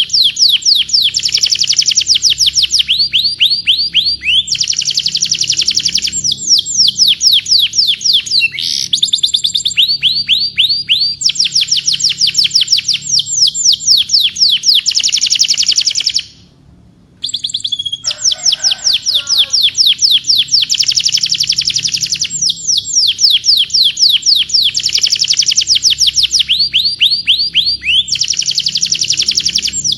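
Domestic canary singing: rapid trills of quickly repeated downward-sweeping notes, one phrase running into the next, with a brief break a little past halfway.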